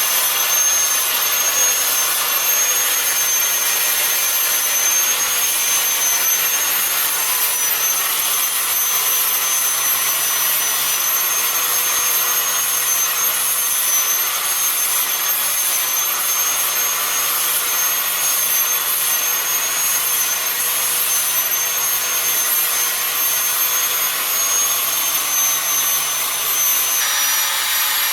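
High-speed power carving tool running steadily while cutting wood, with a high-pitched whine over a hissing grind.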